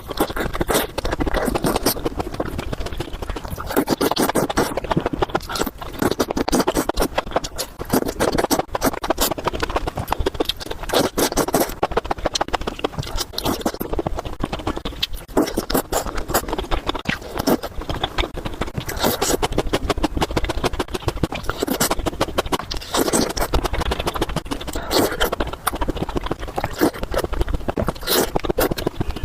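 Close-miked eating sounds: chewing and slurping of spicy chicken noodles and mushrooms, a constant run of quick wet smacks and clicks that swells with each mouthful.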